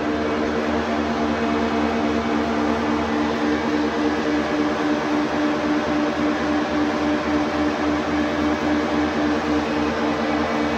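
Metal lathe running: a steady machine hum with several fixed tones and a hiss, unchanging throughout.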